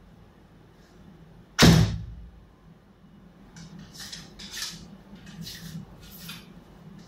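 A 60 lb Mariner Spring and Autumn 2 bamboo Chinese bow is shot about one and a half seconds in: a single sharp, loud string slap with a short ring-off. After that comes a string of short rustling scrapes as the next arrow is drawn out from the spare arrows in the hand and nocked.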